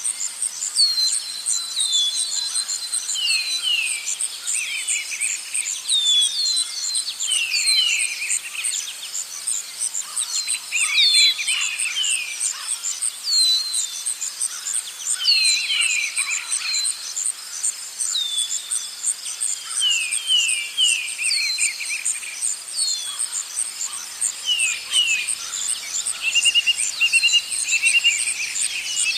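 Forest ambience: a continuous, fast-pulsing high-pitched insect trill, with several birds calling over it in short, quickly falling whistled notes and chirps that come in clusters.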